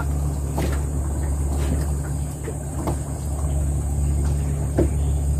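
Small engine of a narrow river boat running steadily with an even, low hum, with a few faint knocks over it.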